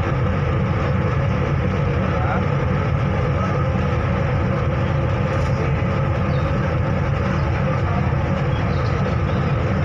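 Steady low drone of a river ferry's engine, heard from its deck.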